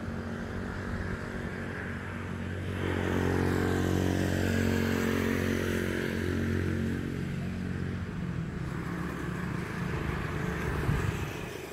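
Engine of a passing motor vehicle, growing louder about three seconds in and easing off after about eight seconds.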